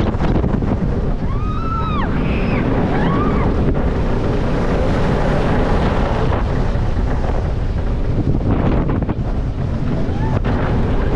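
Wind buffeting the microphone: a loud, steady rumbling rush. A few short calls that rise and fall in pitch sound in the first few seconds, and one more near the end.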